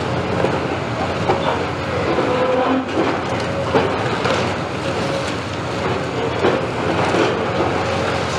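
Caterpillar 329E excavator running steadily under load as its demolition grapple crushes and pulls at a reinforced concrete roof edge, with irregular crunches and clatter of breaking concrete and falling rubble.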